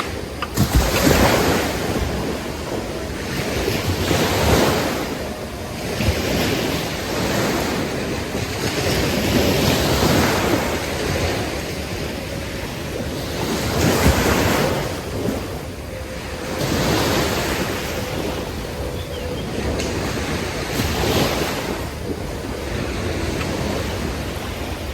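Sea waves breaking and washing up the beach, surging every three to four seconds, with wind buffeting the microphone.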